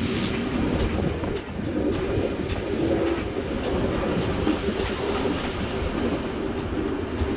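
Steam-hauled heritage train running along the track, heard from an open carriage window: a steady rumble of wheels on rail with scattered clicks as the wheels pass over rail joints and points.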